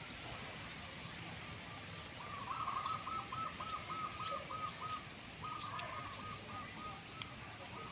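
A bird calling off-camera: two bouts of quickly repeated short notes, about four a second, over faint outdoor background hiss.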